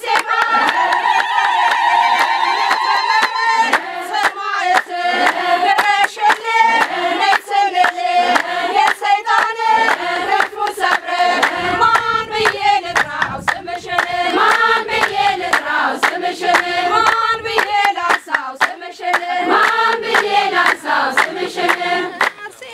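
A group of women singing an Ethiopian Orthodox hymn together, with steady rhythmic hand clapping.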